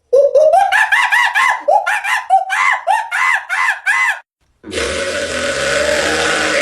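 A man's voice making sound effects: a quick run of short yelps, each rising and falling in pitch, about three a second. After a short break comes one harsh, rasping held sound lasting about two seconds.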